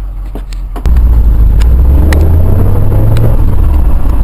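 Old Chevy pickup truck's engine running, heard from inside the cab while it drives: a loud, steady low rumble that cuts in abruptly about a second in, its pitch rising and falling slightly in the middle.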